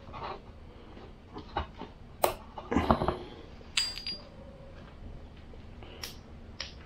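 Scattered clicks and knocks of equipment being handled close to the microphone, with a few louder thuds about three seconds in and a sharp click with a brief high ring near four seconds.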